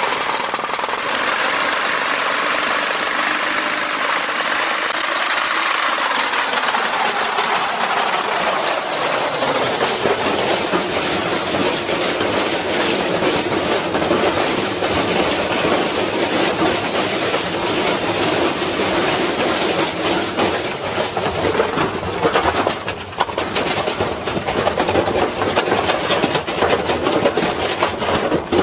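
A washing machine running while it destroys itself, with a continuous loud clatter of rapid banging and rattling.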